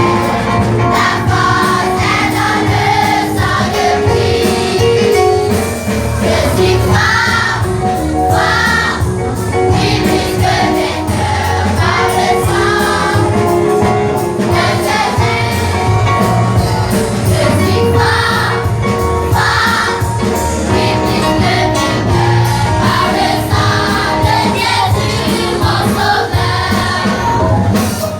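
A choir singing a French-language gospel hymn over instrumental backing.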